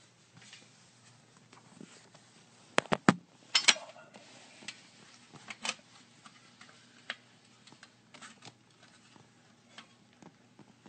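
Scattered light clicks and taps. The loudest are a quick run of three sharp clicks about three seconds in, followed by a short cluster of clicks.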